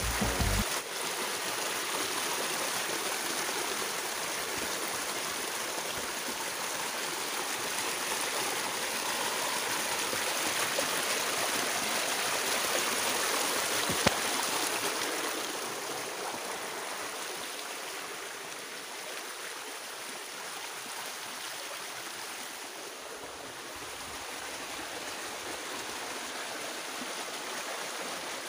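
Shallow jungle stream running over rocks, a steady rush of water that is louder in the first half, with one sharp click about fourteen seconds in.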